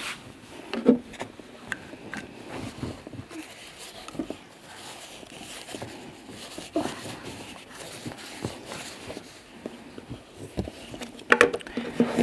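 Paper towel rustling with scattered small clicks and taps as a fountain pen cap is turned by hand to screw it onto a metal finial held in locking pliers. A child's voice comes in near the end.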